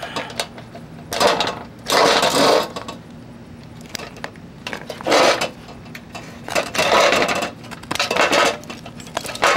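Wires being pulled out of a window air conditioner's capacitor and housing: several separate bursts of metallic rattling and scraping.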